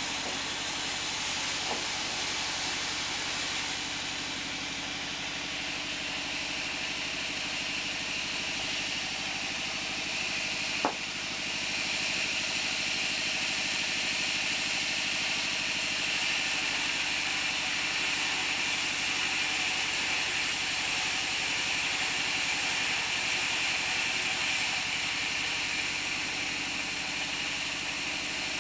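Band sawmill running steadily with a hissing, machine-like whir. A single sharp knock comes about eleven seconds in, after which the sound turns brighter.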